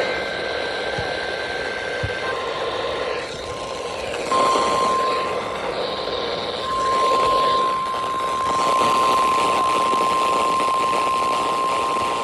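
NOAA Weather Radio alert tone: a single steady electronic tone, the 1050 Hz warning alarm, comes in about two seconds in and holds unbroken over background hiss. It is the alarm that sets off weather-radio receivers ahead of the test broadcast.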